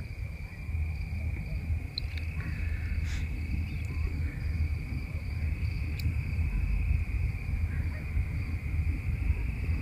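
Crickets trilling steadily in a high, unbroken note over a low rumble, with a few faint clicks.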